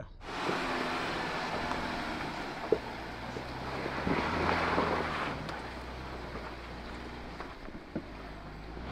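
Jeep Gladiator Rubicon crawling slowly up a rocky ledge: a steady low engine hum under wind noise on the microphone, with two sharp knocks, one about three seconds in and one near the end.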